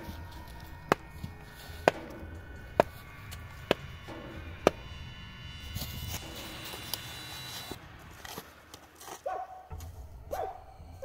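Five sharp knocks about a second apart over several held tones. Near the end come two short sounds that fall in pitch.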